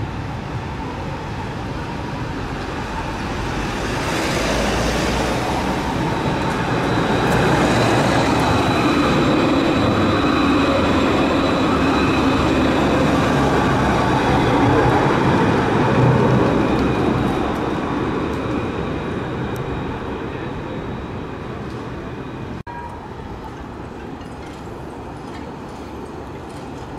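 Alstom Citadis 403 tram running past on street track: its rolling noise grows louder, peaks about halfway through as it passes close, then fades as it moves away, with a steady high whine while it is near.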